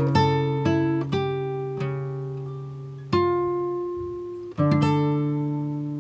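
Background music: acoustic guitar playing slow plucked notes and chords that ring and fade between strokes.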